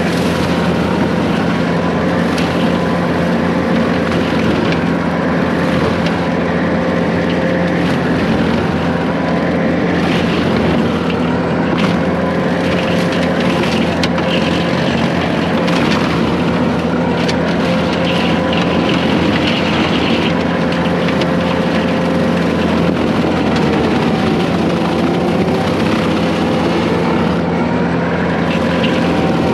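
Case 140 excavator's diesel engine running steadily under load while its brush cutter attachment cuts through brush, with scattered short cracks and snaps of woody growth being cut.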